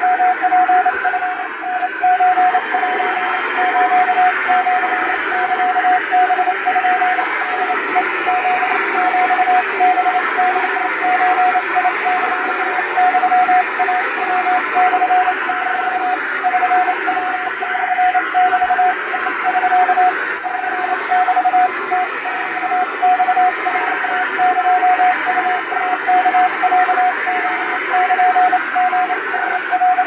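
Japanese (wabun) Morse code sent at high speed with an electronic keyer: a single mid-pitched tone keyed on and off rapidly in dots and dashes, over a steady hiss of radio noise.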